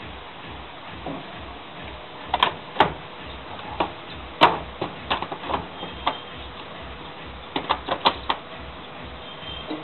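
A part of an LG washing machine being fitted and pushed into its catches during reassembly: a series of sharp clicks and knocks in three clusters, about two and a half seconds in, around the middle, and near the end.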